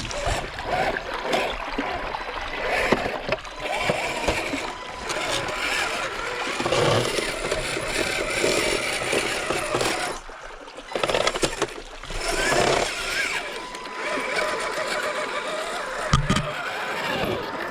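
RC4WD Trailfinder 2 scale crawler's electric motor and drivetrain whirring in uneven spurts as it is driven over the trail, with a few short knocks along the way.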